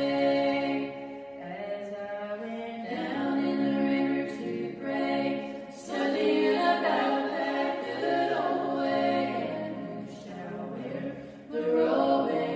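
Background music: a choir singing unaccompanied in long held chords, with new phrases starting about every few seconds.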